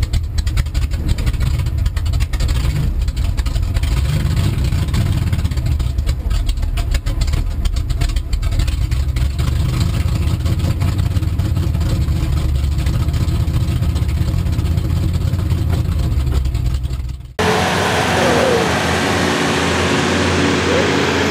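Mega truck's engine under load during a sled pull, heard as a heavy, muffled rumble with wind buffeting through a camera mounted on the hood. About 17 seconds in it cuts abruptly to a fuller, brighter sound of engines with voices.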